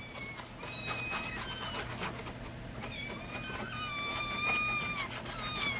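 Several young kittens meowing for their milk: high, thin, drawn-out cries that overlap one another, some held for about a second, the sign of hungry kittens at feeding time.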